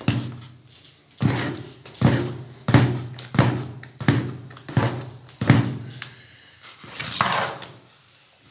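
Long metal ladle knocking and scraping against a large metal cooking pot as thick rice is vigorously worked to make it smooth: a steady run of dull knocks, about one every 0.7 s, each with a short low ring, then a longer scrape near the end.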